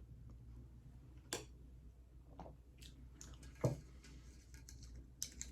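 Quiet close-up chewing with a few soft, wet mouth clicks, the loudest a little past the middle.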